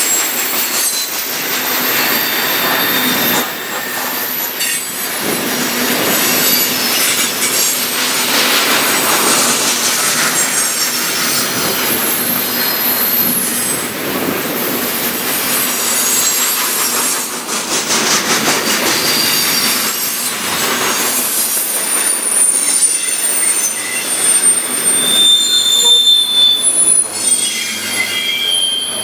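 Freight cars of a CN freight train rolling past on the near track: steady wheel-on-rail rumble and clatter, with thin high-pitched wheel squeals that come and go and are strongest in the last few seconds.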